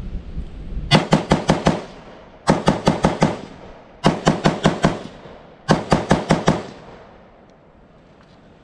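AR-15 rifle fired rapidly in four quick strings of about five or six shots each, roughly six shots a second, emptying a 20-round magazine. Wind rumbles on the microphone before the first string.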